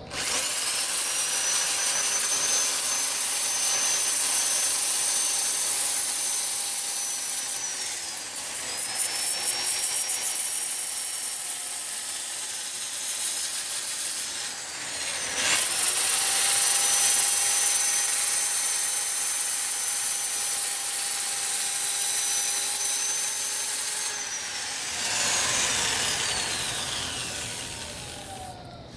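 Powered sanding disc scraping across the wooden bottom of a platter during final sanding: a high motor whine over rough abrasive scraping. The motor speed dips twice and winds down near the end.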